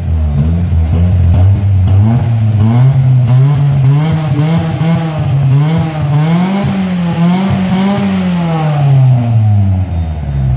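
Ford Ka 1.0 revved several times through a newly fitted prototype exhaust muffler. The engine note climbs in steps to its highest revs about two-thirds in, with a crackle at the top of the revs, then drops back to idle near the end.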